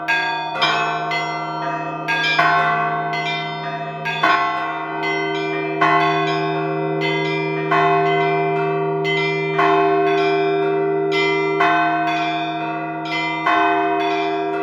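A peal of bells rung by hand. A deep bell keeps a steady hum under it, a heavier stroke falls about every two seconds, and quicker strikes on smaller, higher bells fill the gaps, every stroke left to ring on.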